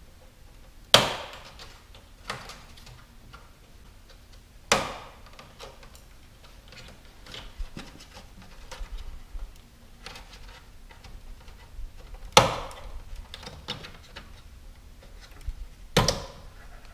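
Plastic retaining tabs of a Chevrolet Silverado grille bowtie emblem clicking and snapping as they are pried and popped loose, with light handling rattles between. Five sharp snaps, the loudest about a second in and again about twelve seconds in.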